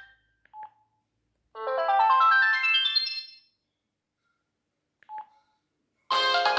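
Sony Ericsson J110i mobile phone ringtones through the phone's small speaker: one tune cuts off, a short beep follows, then a quick rising run of notes lasting about two seconds. Another short beep comes about five seconds in, and a new, busier tune starts near the end.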